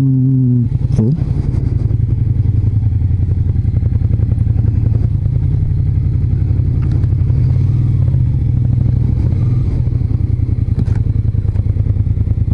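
Suzuki Gladius 400's V-twin engine running steadily at low revs, with a brief rise in revs about a second in.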